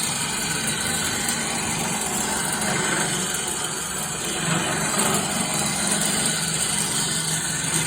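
Homemade wood lathe running: a steady motor hum with the hiss of a cutting tool scraping the spinning wood.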